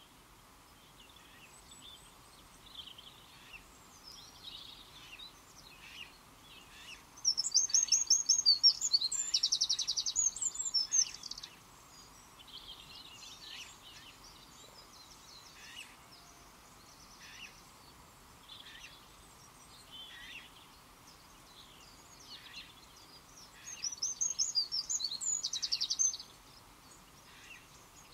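Outdoor birdsong: one songbird sings twice, each time a loud, rapid phrase of quick repeated high notes running into a trill and lasting about four seconds, while other birds chirp and call softly throughout.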